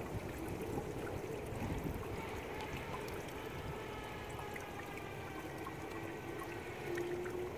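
Steady trickle and splash of running water in a garden goldfish pond.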